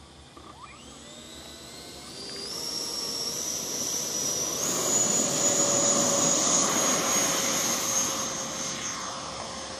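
90 mm FMS electric ducted fan, on a 6-cell battery, spooling up to takeoff power in an RC jet: a high whine that climbs in steps over the first few seconds, with a rushing of air beneath it. It is loudest about halfway through, then eases off as the jet runs away down the strip.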